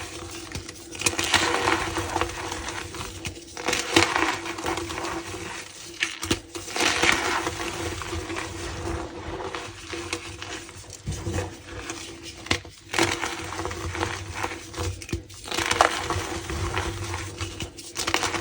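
Tie-dyed gym chalk being crushed and crumbled by hand, squeaky crunching in irregular bursts with sharp crackles. A faint steady hum runs underneath.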